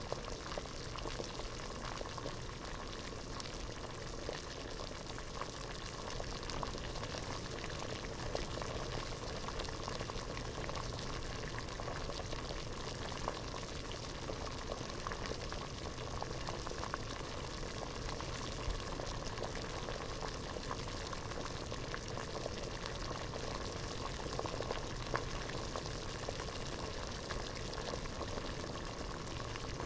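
Water at a rolling boil in a pot, a steady dense bubbling with many small pops and a few sharper ones scattered throughout.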